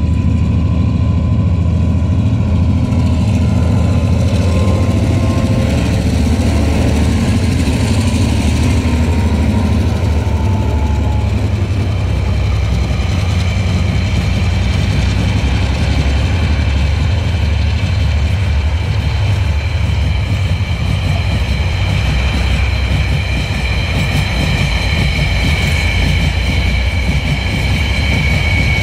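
Empty ore train of TasRail DQ class diesel locomotives and ore wagons running past with a heavy, steady engine drone. The wagons roll by on the rails, and near the end a high, steady wheel squeal rises.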